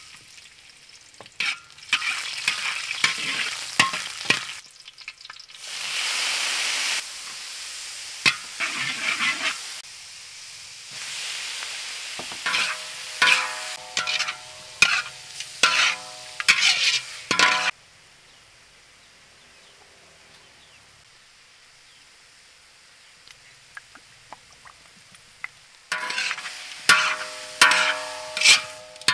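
Garlic and meat sizzling in hot oil in a wok, with a loud surge of sizzling about five seconds in. A metal spatula scrapes and knocks against the wok, and the pan rings with each knock. The frying sinks to a faint hiss for several seconds midway, then the spatula strokes start again near the end.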